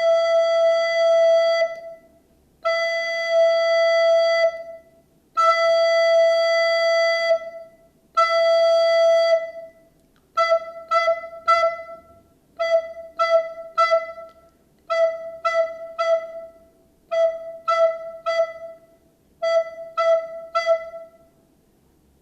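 Soprano recorder playing the single note Mi (E), fingered with six fingers: four long held notes of about two seconds each, then five quick groups of three short tongued notes, all at the same pitch.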